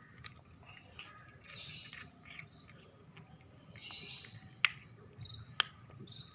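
Short bursts of bird chirping come and go, with two sharp clicks about a second apart near the end.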